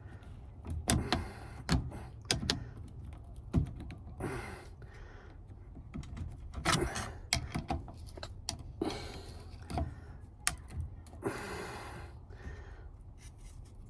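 Irregular small metal clicks, ticks and short scrapes of a screwdriver working a steering-column lock ring up out of its groove on a 1980 Chevy C30.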